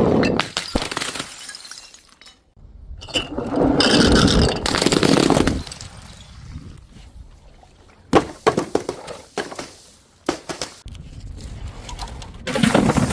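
Glass bottles breaking and shattering. There are noisy crashes near the start and from about three to five seconds in, then a run of sharp clinks and cracks of glass from about eight seconds on.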